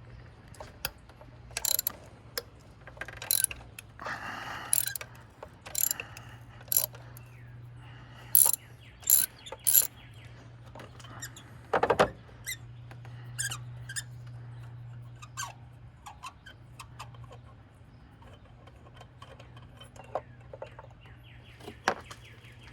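Irregular sharp metallic clicks and clinks of hand tools, such as a socket ratchet and sockets, working on spark plugs, with a steady low hum underneath. The loudest clicks come in a cluster about eight to ten seconds in and once more at twelve seconds.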